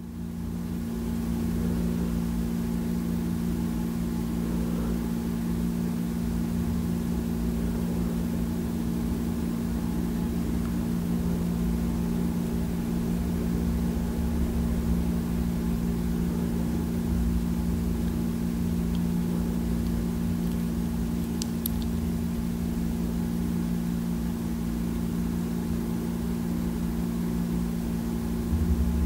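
An engine running steadily at idle, a constant low hum.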